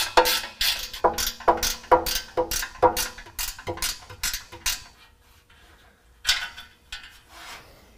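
Ratchet wrench clicking in quick back-strokes, about two a second, as it loosens the bolts on an exhaust pipe flange. The strokes stop about five seconds in, and a short rattle follows a little later.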